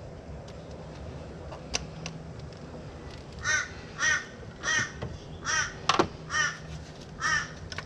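A crow cawing about seven times in an even series, roughly once every half second, over a faint steady background hum, with a few light clicks, the sharpest one just before the end of the cawing.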